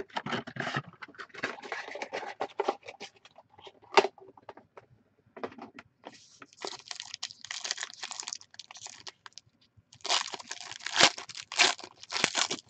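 Foil trading-card pack wrappers crinkling and tearing as packs are handled and ripped open, in irregular rustles with a sharp click about four seconds in. The crinkling is loudest near the end.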